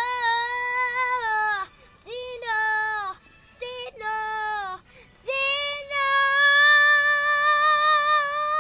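A young girl singing solo in short sung phrases with brief breaks, then holding one long high note through the last few seconds.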